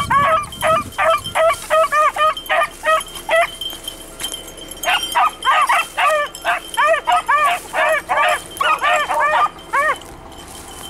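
Beagles baying in quick runs of short, rising-and-falling yelps, about three or four a second, breaking off briefly a little before the middle and stopping near the end. This is the cry of hounds giving tongue as they run a rabbit's scent.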